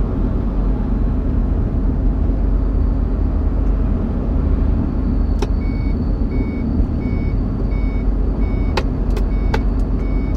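Iveco Eurocargo lorry driving, heard inside the cab as a steady drone of engine and road noise. About halfway through come a few sharp clicks, and an electronic beep starts repeating about one and a half times a second.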